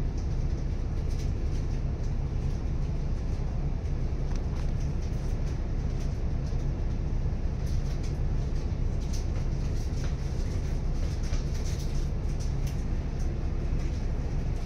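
City bus's diesel engine idling with a steady low rumble, heard from inside the cabin while the bus stands still.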